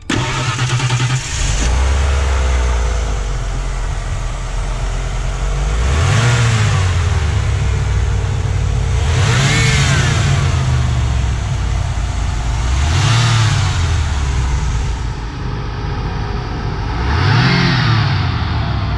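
Ford 5.0-litre fuel-injected V8 running: it turns fast for the first second, then drops to idle. The throttle is then blipped four times, each rev rising and falling back to idle.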